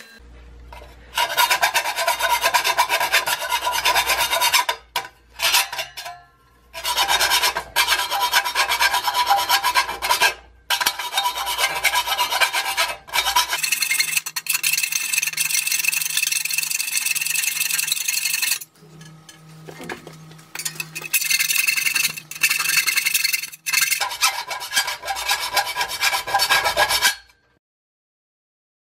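Hand file rasping across the teeth of a circular saw blade, sharpening them in runs of quick strokes with short breaks. It stops shortly before the end.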